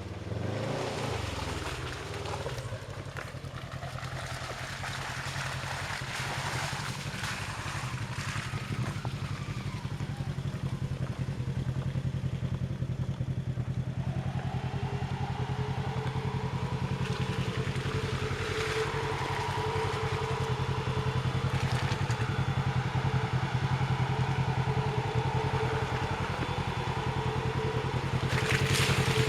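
Off-road vehicle engine running steadily, slowly getting louder. About halfway through, a steady whine joins it.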